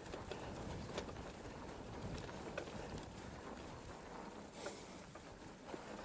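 Mongoose Tyax mountain bike riding over a rutted dirt track: a steady rumble of tyres on the ground with frequent sharp clicks and rattles from the bike as it bumps along.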